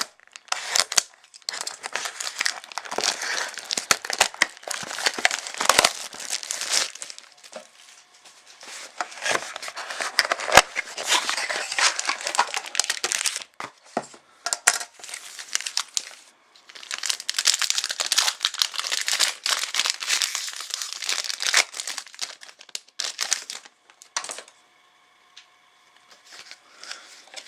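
Plastic and foil wrapping of a trading-card mini box and its packs being torn open and crumpled, in long bursts of crinkling with sharp snaps, easing off near the end.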